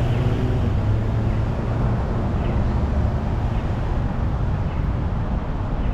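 Downtown street traffic: a nearby vehicle engine's steady low hum, strongest in the first two seconds, over the general noise of passing traffic.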